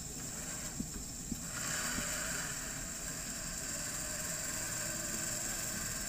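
Engine of a UAZ off-roader stuck in a creek, running steadily and getting louder about one and a half seconds in as it is pushed to drive out.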